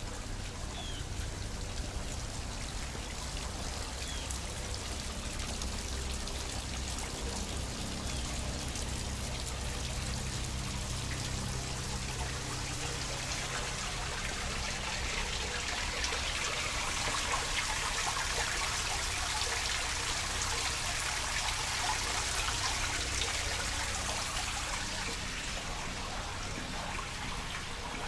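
Water running and trickling in a woodland stream, a steady rush that grows louder a little past halfway and eases near the end.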